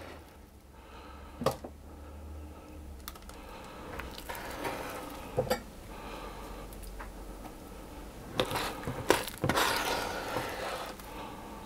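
Wooden spoon scooping thick fruit-cake batter from a mixing bowl into a lined loaf tin: scattered taps and knocks of the spoon with a few scraping passes, the loudest knocks and scrapes about eight to ten seconds in.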